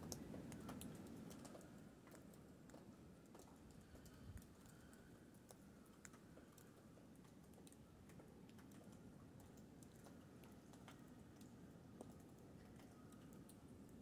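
Near silence: falling snow making faint, irregular light ticks on leaves and branches, a few a second, over a low, steady hush.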